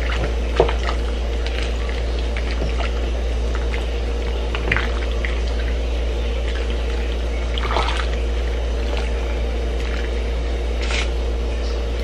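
A wooden spoon stirring meat pieces in broth in a metal stockpot: liquid sloshing and swishing, with a few light knocks of the spoon against the pot, over a steady low hum.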